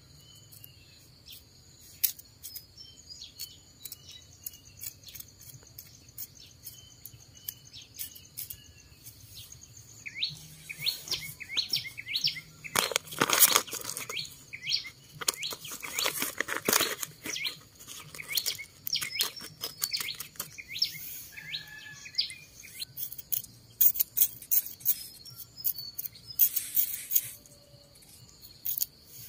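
Outdoor rural background of insects droning steadily and birds chirping, over close handling noises: a hand sickle scratching and scraping dry, stony soil, and a plastic seed packet crinkling loudly in the middle as it is handled and opened.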